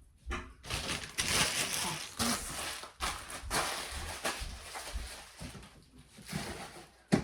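Rustling and handling noise from packaging and gear being moved about, in several rough starts and stops, ending in one sharp knock near the end.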